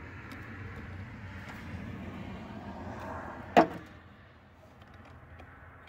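Hand-work noise on ignition wiring: a steady low rustling as hands and a small tool work at a terminal nut, then one sharp knock about three and a half seconds in.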